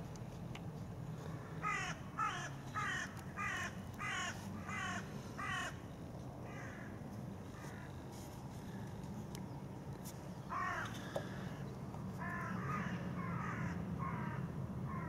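A bird calling in quick runs of harsh, crow-like calls: about six calls a little over half a second apart, one more call a few seconds later, then a second run of about five. A steady low hum runs underneath.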